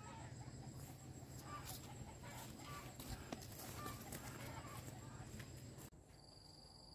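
Chickens clucking, short scattered calls over a low steady hum. About six seconds in, the sound cuts to a quieter background with high, intermittent insect trilling.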